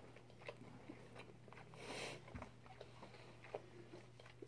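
Faint, quiet chewing of food with a few small mouth clicks.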